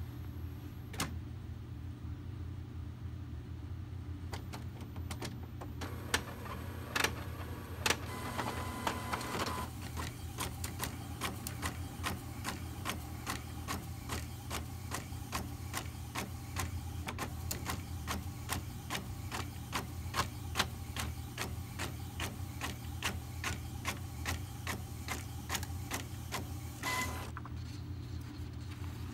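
Epson WorkForce WF-7210 inkjet printer printing. A few separate clacks come first as the sheet is drawn in, then a long, steady run of evenly spaced ticks as the print head shuttles across the page, over a low hum.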